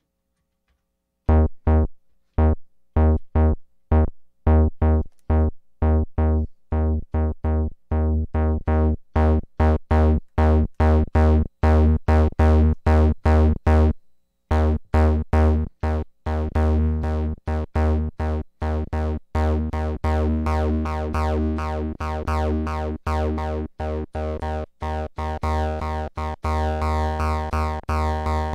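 AKAI Rhythm Wolf's analog bass synth voice playing a repeating sequence of short, deep notes, several a second. The notes stop briefly around the middle, then carry on with a brighter, buzzier tone through the second half.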